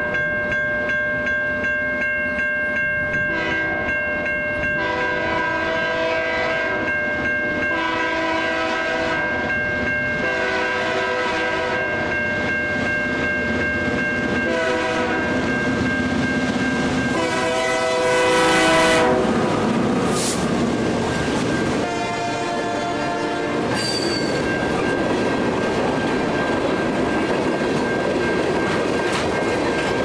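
Nathan K3HA three-chime air horn on a CN freight locomotive sounding a series of long and short blasts for the level crossing as the train approaches. The locomotives then pass, and tank cars roll over the crossing with wheel clatter. A crossing-signal bell rings steadily throughout.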